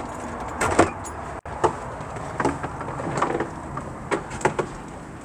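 Several light knocks and clicks of a door being handled and footsteps, over low handling noise. The sound cuts out for an instant about a second and a half in.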